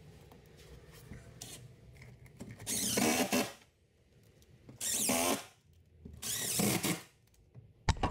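Cordless drill driving the screws of an old-work (butterfly) electrical box into drywall, in three short runs of under a second each. A sharp knock comes at the very end.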